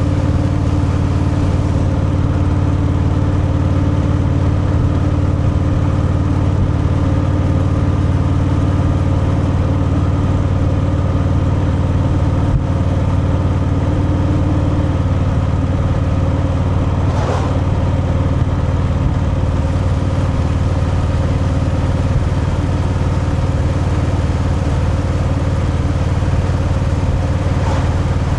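Stock Harley-Davidson Fat Boy's V-twin engine and exhaust running steadily, with a brief rushing noise about seventeen seconds in.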